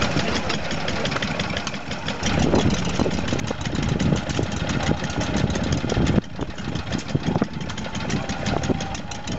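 Vintage single-cylinder stationary engine running steadily, with an even, rapid firing beat.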